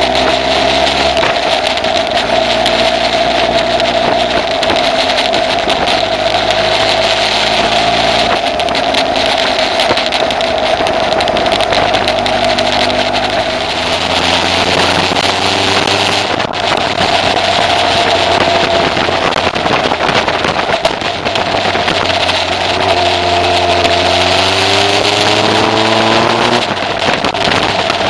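Kawasaki ZZ-R1100's inline-four engine pulling the motorcycle along a road, its pitch rising under acceleration three times and dropping at each gear change, over a steady rush of wind and road noise.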